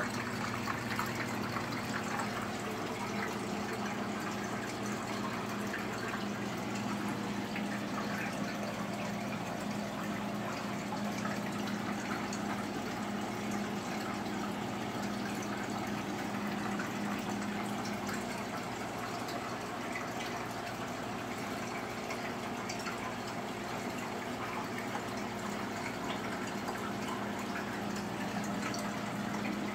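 Aquarium water circulation running steadily: water trickling and bubbling over a low, even pump hum.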